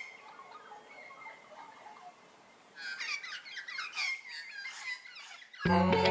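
Birds chirping and calling in quick, high, twittering phrases, fading for a moment and then busier again about three seconds in. Near the end, guitar music starts abruptly.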